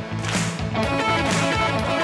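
Electronic keyboard playing live: sustained chords over a repeating bass line.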